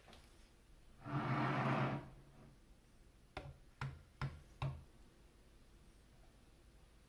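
Handling noise on a wooden table: a DSLR camera scraped across the tabletop for about a second, then four short light knocks about half a second apart as the camera and the microscope head are handled.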